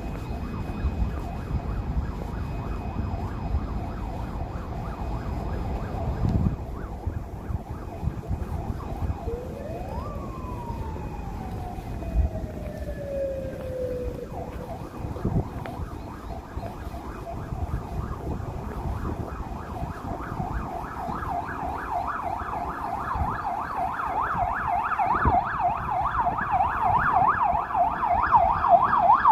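Emergency vehicle siren over steady traffic noise. A single slow whoop rises and falls about ten seconds in, then from about twenty seconds a fast up-and-down yelp grows louder toward the end.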